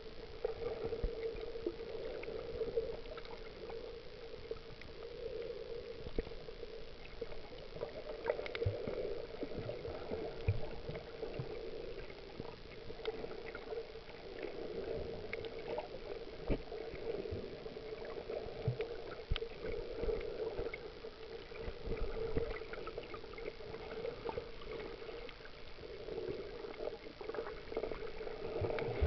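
Muffled underwater sound picked up by an action camera's microphone inside its waterproof housing: a steady wash of water that swells and fades every few seconds, with scattered small clicks and low knocks.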